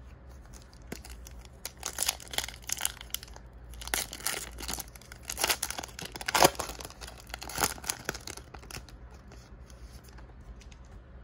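Foil wrapper of a Donruss Optic basketball card pack being torn open and crinkled by hand: a run of crackling rips starting about a second in, loudest a little past the middle, dying down near the end.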